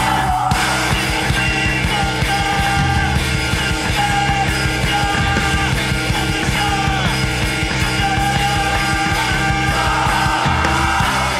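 Loud noise-pop band music: a dense wall of sustained tones over a steady, driving drum beat.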